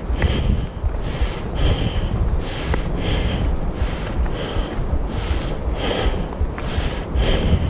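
Footsteps crunching on a gravel-and-dirt trail, about two steps a second in an even walking rhythm, over a low rumble of wind on the microphone.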